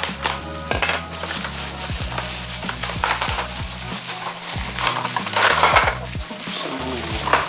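Bubble wrap crinkling and crackling as it is pulled off a blister-carded Hot Wheels diecast car, loudest a little past halfway. Background music with a steady beat plays underneath.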